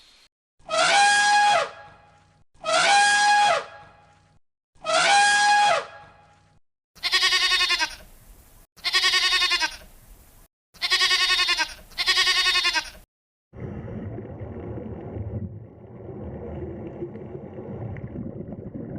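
Bleating from a goat or sheep: three identical falling bleats about two seconds apart, then four shorter quavering bleats in quick succession. For the last five seconds a quieter, rough, low sound follows, from an animal that cannot be made out.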